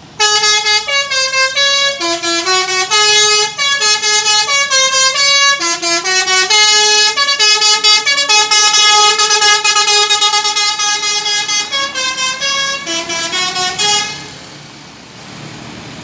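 Tour bus Basuri telolet horn playing a fast melody, its notes stepping up and down, for about fourteen seconds before stopping. The quieter hum of the bus and road traffic is left after it.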